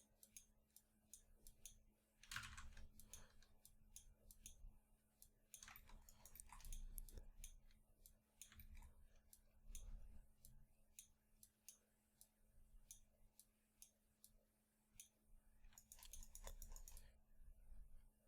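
Faint, irregular clicks of a computer mouse and keyboard, over a low steady hum.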